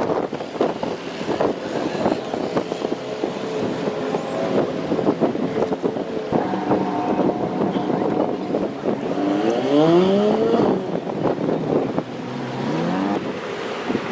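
Wind buffeting the microphone over a boat engine's hum. About two-thirds of the way in, the engine rises in pitch twice.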